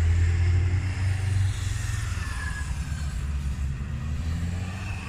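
Cars driving past on the road at a level crossing, with a low engine rumble that is strongest at first and fades away after about a second and a half.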